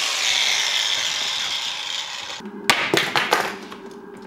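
Handheld angle grinder running with a steady high hiss and whine after cutting into a carrying case, slowly fading over the first two and a half seconds. Then a few sharp knocks about three seconds in.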